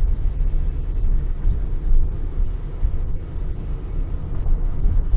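Steady low rumble of a supercharged Pontiac Grand Prix GTP being driven, heard from inside the cabin: engine and road noise.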